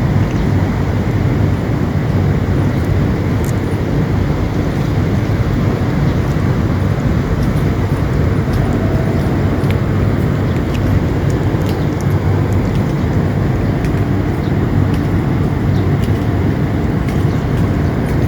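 Steady low rumbling noise, with faint scattered ticks above it.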